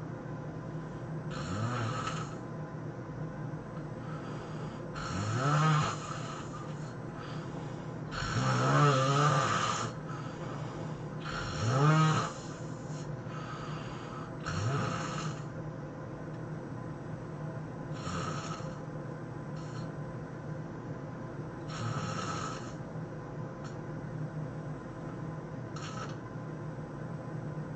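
A person snoring heavily, with about eight loud snores at irregular gaps of three to four seconds. Several snores rise in pitch as they go, and the loudest come around nine and twelve seconds in.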